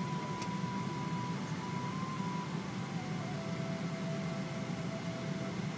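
Airliner cabin noise in flight: a steady low rumble of engines and airflow. A faint thin tone rides over it and drops to a lower pitch about halfway through.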